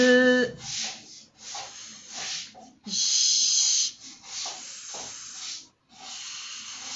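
A woman's voice holds a short vowel, then makes a series of breathy hissed consonant sounds, the longest a high 'sss'-like hiss about three seconds in. These demonstrate consonants as obstacles to the vowel sound.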